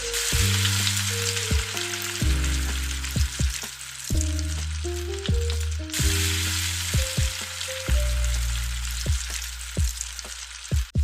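Panko-coated okra deep-frying in hot oil, sizzling steadily, over background music with plucked notes and a bass line.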